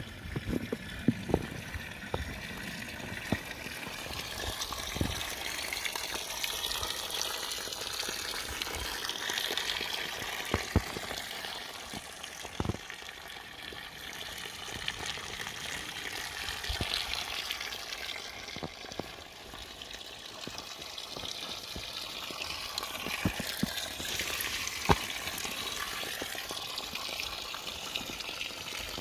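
A small stream running steadily, its rushing swelling and easing, with scattered faint clicks and knocks over it.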